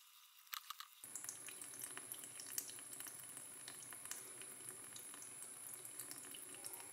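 Faint trickle of water from a tap running into a sink, with a few small ticks and drips. It is almost silent for about the first second.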